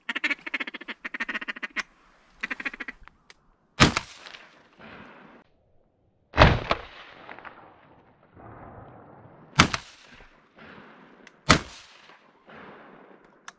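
A run of rapid duck quacks, then a sharp 12-gauge shotgun blast about four seconds in, followed by three more identical blasts a few seconds apart, each with a short echoing tail.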